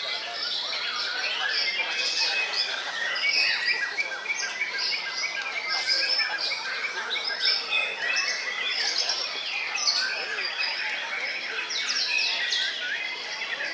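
White-rumped shamas singing, several at once: a dense, unbroken tangle of overlapping whistles, trills and chatters with no pauses.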